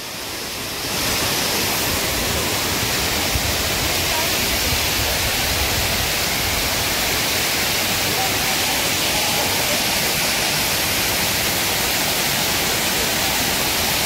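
Waterfall: a steady rush of falling water that swells about a second in, then holds even.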